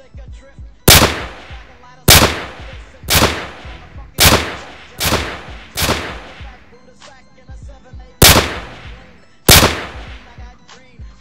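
Pistol gunshot sound effects: eight single loud shots, each a sharp crack with a fading tail, at roughly one-second intervals with a longer pause before the last two. Quiet background music runs underneath.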